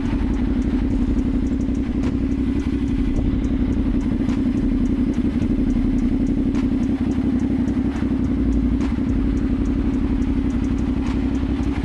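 CFMoto motorcycle engine idling steadily while stopped.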